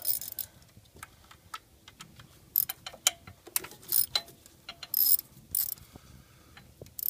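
Hand ratchet clicking in short bursts as it turns the ignition coil hold-down bolt on the engine.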